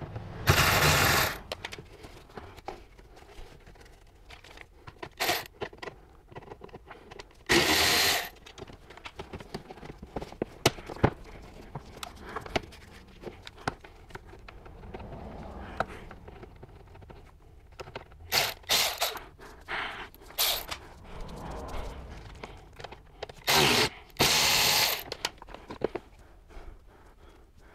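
Cordless electric ratchet running in short bursts, about six of them, each under a second to a second and a half long, backing out the screws that hold the car's factory plastic underbody panel. Small clicks and plastic handling noises fill the gaps between bursts.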